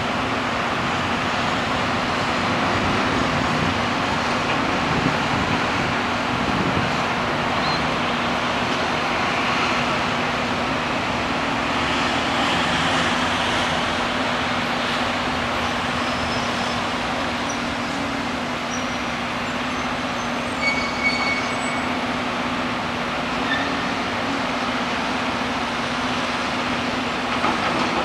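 Steady city traffic din rising from the streets below, with a constant low hum under it. A few short high-pitched beeps or toots come through about two-thirds of the way in.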